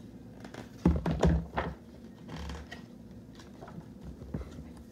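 Handling noise close to the microphone: a quick cluster of thumps and taps about a second in, followed by a brief soft rustle and a few faint ticks.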